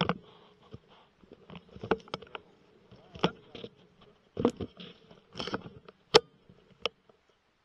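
Handling noise from a rifle carrying a thermal scope as it is swung and aimed: scattered clicks and knocks with light rustling. One sharp click a little after six seconds is the loudest.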